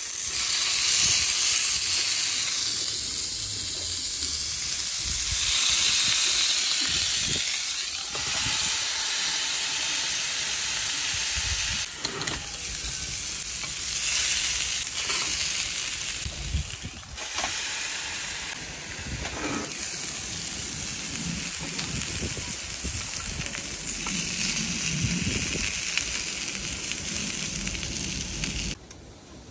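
Meat searing on the hot ribbed plates of an OptiGrill electric contact grill: a steady, loud sizzle, broken abruptly a few times, that stops suddenly near the end.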